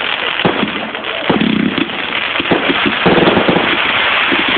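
Fireworks going off: a dense crackling hiss with many sharp pops and bangs in quick succession, growing busier in the second half.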